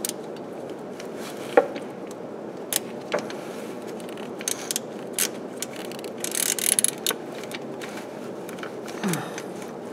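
Stubby ratchet with a 17 mm deep socket tightening a PCV valve into the engine: scattered single clicks, then a quick run of ratchet clicks about six to seven seconds in, over a steady low hum.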